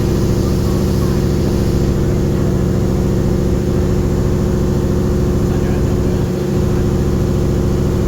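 Large passenger boat's engine running at a steady pitch, a low even drone.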